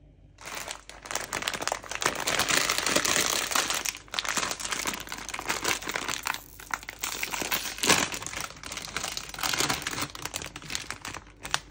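Kraft-paper bag of coconut chips crinkling loudly as it is handled and opened by hand, starting suddenly just after the start, with a couple of brief lulls.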